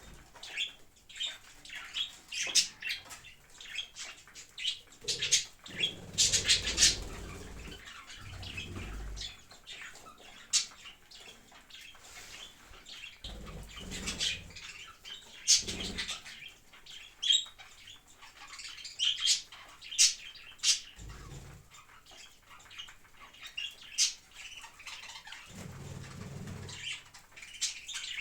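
Pet parrot chirping in many short, sharp calls, with a few bouts of low rustling in between.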